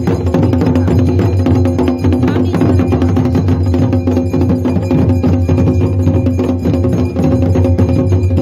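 Traditional temple drumming with bells: fast, unbroken drum strokes and clanking bells over steady ringing tones, loud throughout.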